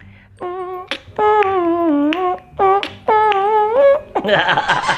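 A high-pitched voice singing a short tune without words in a few held, sliding phrases, breaking into laughter near the end.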